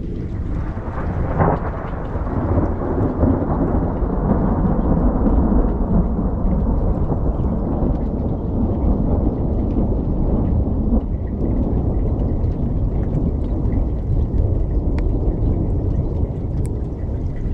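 Thunderstorm with heavy rain and wind: a steady, deep rumble with faint ticks of drops, which begins abruptly.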